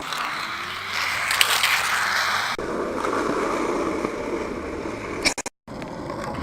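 Skateboard wheels rolling on pavement with a steady rushing noise, then a few sharp clacks about five seconds in.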